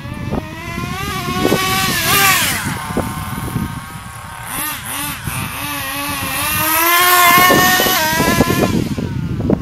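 1/10-scale HPI radio-controlled car's motor running at high revs, its pitch rising and falling. It is loud with a sharp drop in pitch about two seconds in, eases off around four seconds, then climbs to its loudest near the end before falling away.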